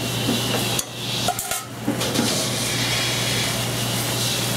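Pasta and sauce simmering and hissing in a stainless sauté pan over a gas burner, heating to finish cooking the pasta, over a steady low hum.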